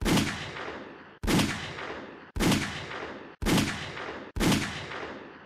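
Five 9mm pistol shots from a Sig Sauer P938, about a second apart. Each is a sharp crack with a short decaying tail that is cut off abruptly by the next shot.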